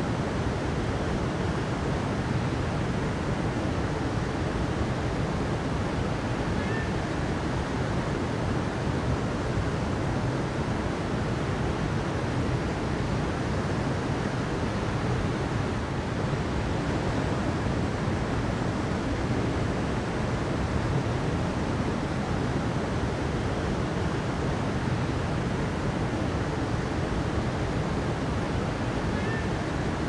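Flowing water rushing steadily: an even, unbroken wash of noise, heaviest in the low end.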